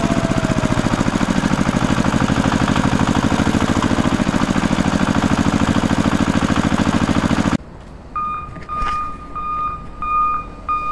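Tractor engine running at a steady fast beat, cutting off suddenly about three-quarters of the way in; then about four or five short, evenly spaced beeps at one pitch, like a vehicle's reversing alarm.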